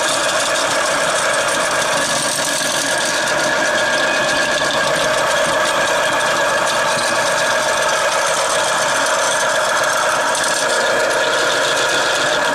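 Chinese GQ-75 electric drain auger running steadily on test after repair, a loud mechanical whir from its motor and spinning drum.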